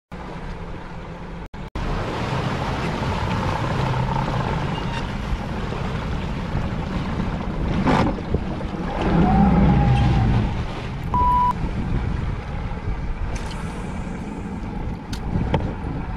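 A boat's engine running steadily as the small fishing boat is manoeuvred into position, with wind and water noise around it. A single click comes about halfway through, and a short beep shortly after.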